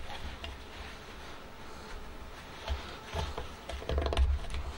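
Screwdriver prying a spring-tensioned C-clip out of its groove in a turbocharger housing: a few short metal scrapes and clicks, loudest about four seconds in, over a low rumble.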